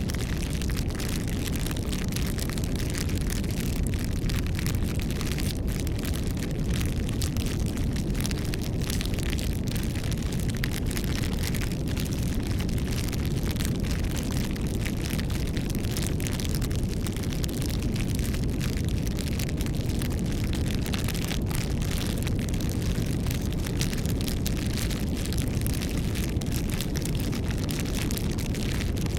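Campfire burning: a steady low rumble of flames with frequent small crackles and pops from the wood.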